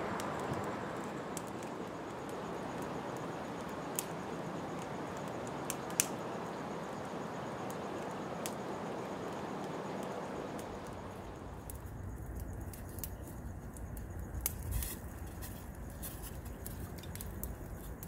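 Wood fire burning in a stacked-brick rocket stove: a steady rushing noise with occasional sharp crackles and pops. About twelve seconds in the sound changes to a deeper rumble with more frequent snaps.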